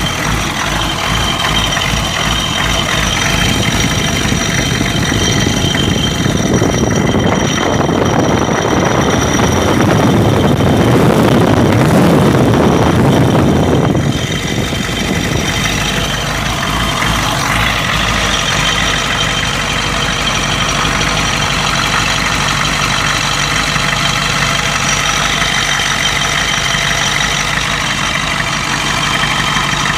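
Ford 7.3 IDI V8 diesel idling with a knock like an injector knock, in an engine that misfires and blows by at idle; it grows louder for several seconds in the middle and drops back suddenly about fourteen seconds in. The engine was found to have the second compression ring broken on two pistons and a bad valve guide.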